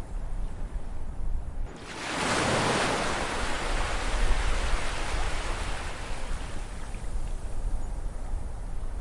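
Ocean waves: a wave breaks about two seconds in, its hiss swelling quickly and then washing away over several seconds, above a steady low rumble of surf.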